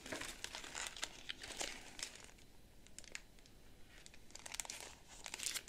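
Plastic packaging and tissue paper crinkling faintly as hands handle a plastic-wrapped paper block, in scattered small crackles that ease off through the middle and pick up again near the end.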